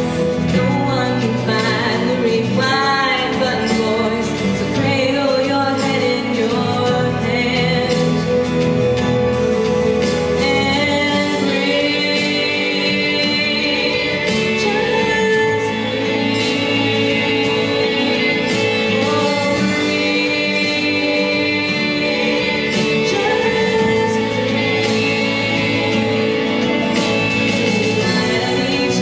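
A woman singing a pop song into a microphone over instrumental accompaniment, amplified through a PA.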